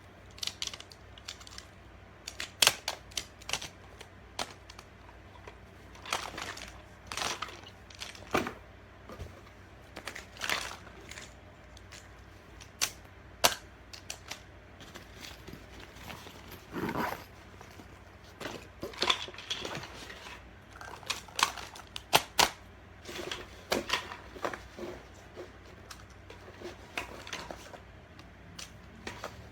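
Magnetic building tiles clicking and clacking as they are handled and snapped together: irregular sharp clicks, some louder knocks, at an uneven pace.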